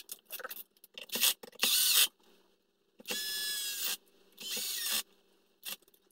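Small cordless electric screwdriver whining in short runs of about a second, three times, as it drives in the rear skid plate's screws, with light clicks and taps in between.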